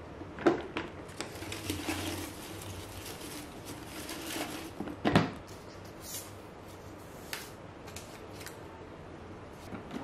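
Paper rustling into a plastic pedal bin, then the bin's lid clacks shut sharply just after five seconds, with a few lighter clicks and taps around it.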